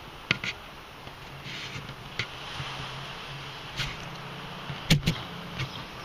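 Scattered clicks and knocks of handling, the loudest a double knock about five seconds in, over a steady low hum and a faint hiss.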